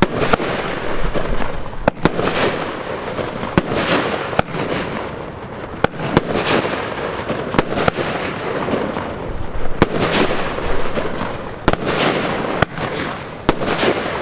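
Firework cake (Twinkling Bauhinia X Static) firing shot after shot, about one a second. Each shot gives a sharp report, and the bursting stars fill the gaps with a dense crackle.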